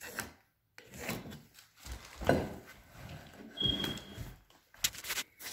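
Irregular knocks, scrapes and rubbing as a countertop bar bracket is handled and set against wooden 2x4 framing. The loudest knock comes about two seconds in, with a brief high squeak a little after the middle.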